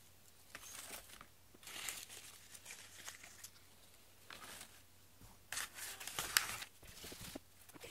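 Newspaper-print paper wrapping of a small artificial-flower bouquet crinkling and rustling as it is handled, in several short bursts, the loudest about six seconds in.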